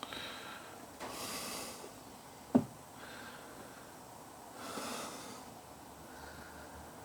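A person breathing noisily through the nose in a few drawn-out breaths. A single sharp knock comes about two and a half seconds in.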